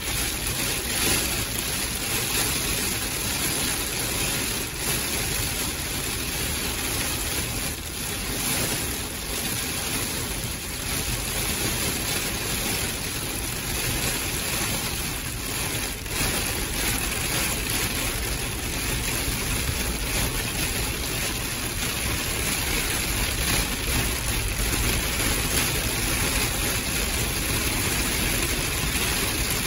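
Heavy monsoon rain pelting the windshield and body of a vehicle, heard from inside the cabin as a dense, steady hiss with scattered drop impacts, over the vehicle's engine running as it drives.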